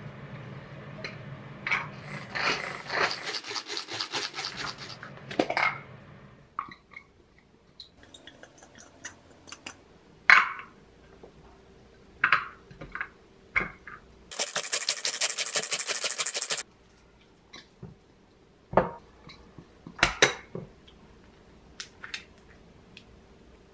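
A kitchen knife chopping rapidly on a wooden cutting board for a few seconds. Then scattered clinks of glass bowls and utensils, and about two seconds of fast, even rattling from a manual mini food chopper mincing shrimp. Near the end come a couple of sharp knocks.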